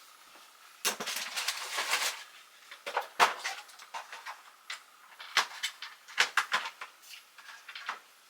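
Scraping and rattling for about a second, then a scatter of sharp clicks and knocks: tools and hardware being handled while a closet's fittings are taken apart.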